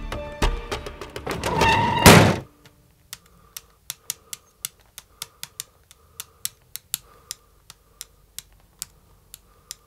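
Music swells to a loud peak and cuts off about two seconds in. Then a razor blade taps and chops powder on a glass surface, sharp clicks about twice a second, unevenly spaced.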